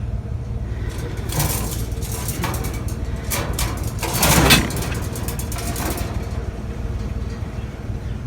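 Vehicle engine idling steadily, with a run of metallic rattles and clanks over the middle few seconds, the loudest about four and a half seconds in, as wire tomato cages are handled and loaded.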